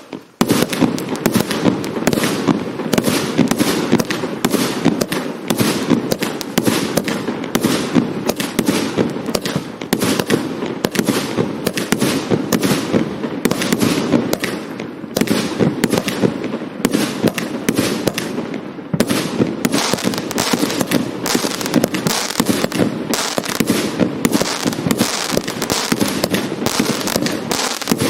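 Hallmark "Organised Chaos" firework cake firing a rapid, continuous barrage of shots and bursts. The barrage starts just after the opening moment.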